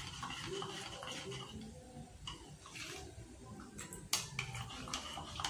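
Plastic spoon stirring a sugary juice mix in a plastic cup to dissolve the sugar, faint scraping at first, then a few sharp clicks from about four seconds in as the spoon comes out against the cup.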